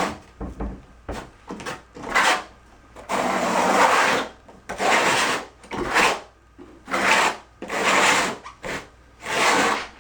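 Steel square-notch trowel scraping thinset mortar across a plywood subfloor in repeated strokes, about one a second, with one longer stroke partway through.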